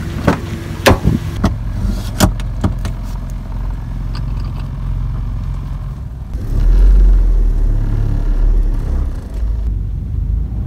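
Door latch clicking and the door of a 1997 Toyota Tacoma being opened and shut, a few sharp knocks in the first three seconds, over the steady hum of its idling 2.4-litre 2RZ-FE four-cylinder engine. About six seconds in the engine rumble grows louder as the truck begins to pull away.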